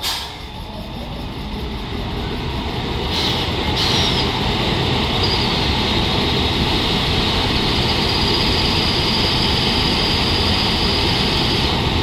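WAP7 electric locomotive starting up: after a sharp clunk at the start, its cooling blowers and auxiliary machines spin up, with a short hiss about three seconds in. The noise grows over about four seconds into a loud, steady whir with a high whine.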